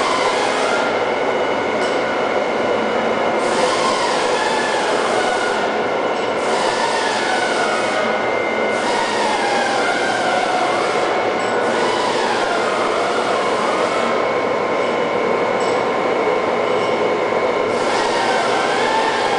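Cincinnati Gilbert Model J CNC horizontal boring mill running under power: a steady mechanical whir with a constant high whine. Every few seconds further whining tones glide down and back up, as the drives speed up and slow down.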